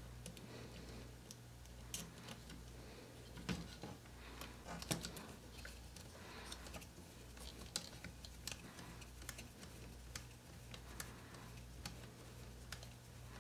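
Small screwdriver clicking and ticking as it drives a tiny screw through the top eyelet of an RC crawler's oil-filled shock absorber into its mount, with small parts tapping on the plastic chassis. The clicks are irregular, a few louder ones a few seconds in, over a low steady hum.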